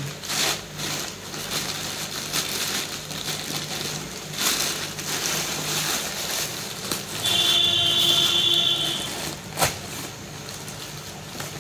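Plastic courier mailer bag crinkling and rustling as it is torn open and a cardboard box is pulled out, with handling knocks. A high squeal lasts under two seconds about seven seconds in, and a sharp snap comes near ten seconds.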